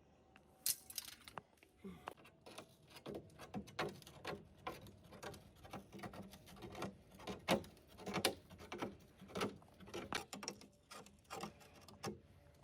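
An irregular run of light taps and knocks, roughly two or three a second, with a few sharper ones in the middle.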